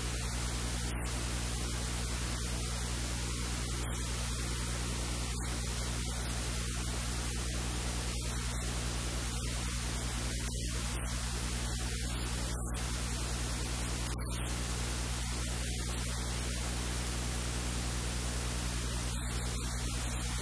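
Steady hiss of static with a low electrical hum underneath, unchanging throughout; no other sound stands out above it.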